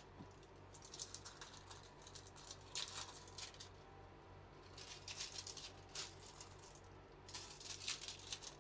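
Faint bursts of crackling and crinkling from sticky tape being handled and pressed around foam pipe lagging, four times, over a low steady hum.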